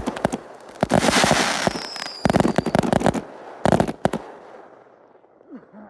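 Fireworks going off in rapid crackling volleys of sharp pops, four clusters over about four seconds, then dying away.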